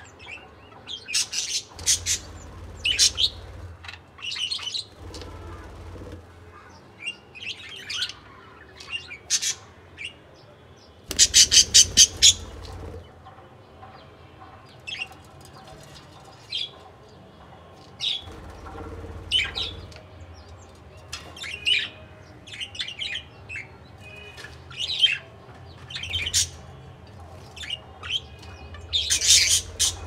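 Budgerigars chirping and squawking, a steady stream of short calls, with a fast run of loud chirps about a third of the way in.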